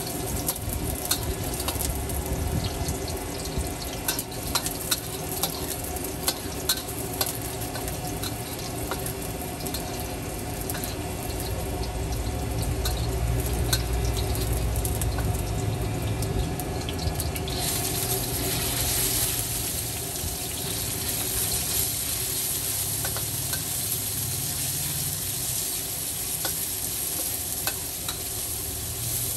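Food being stir-fried in a hot wok: a steady sizzle with many sharp clacks and scrapes of a metal spatula against the pan. A little past halfway the sizzle suddenly grows louder and hissier and stays that way.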